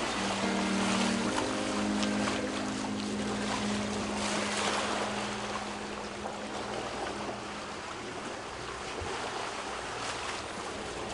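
Wind and water rushing past a catamaran under way at sea, a steady noise, with a few held low musical notes fading out in the first seconds.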